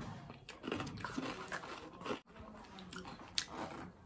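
Close-up eating sounds as melted McFlurry ice cream is taken off a wooden stick spoon: soft mouth smacks and slurps, with a few sharp clicks scattered through.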